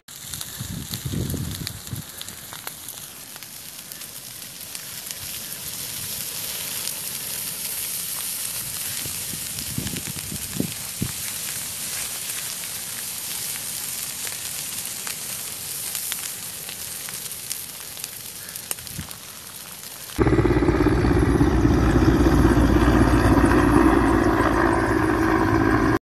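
Dry grass and brush burning: a steady hiss with scattered crackles. About twenty seconds in it cuts suddenly to the much louder, steady low noise of a firefighting helicopter flying overhead.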